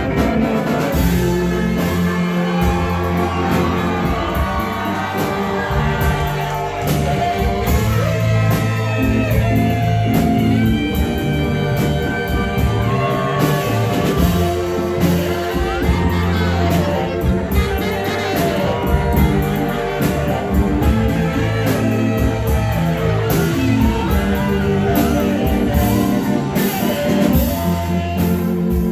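A live band playing a rock-style song with guitar, with a voice singing over it.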